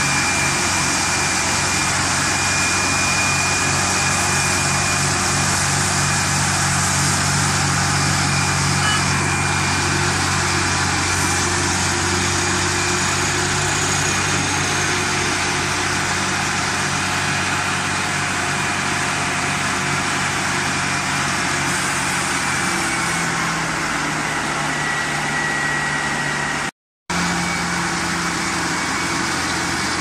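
Luzhong 1004A tractor's diesel engine running steadily with its wheels on the rollers of a test bench. The sound cuts out for a split second near the end.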